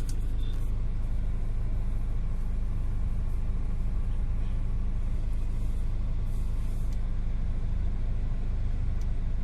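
A BMW car engine idling steadily: a low, even rumble.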